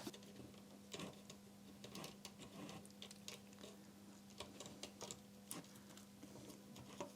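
Faint, irregular small clicks and ticks of metal tweezers against the plastic cogwheels and loading mechanism of a MiniDisc deck while a new drive belt is worked into place, over a faint steady hum.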